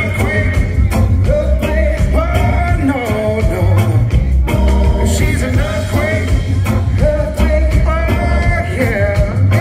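Live reggae band playing: a male singer over electric guitar, a drum kit, heavy bass and organ, with a steady beat.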